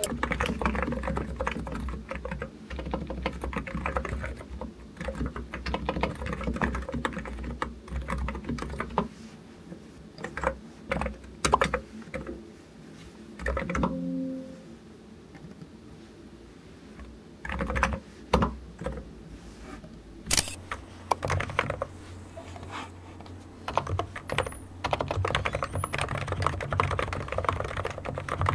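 Typing on a computer keyboard: runs of quick key clicks, thinning out to scattered clicks through the middle and picking up again near the end.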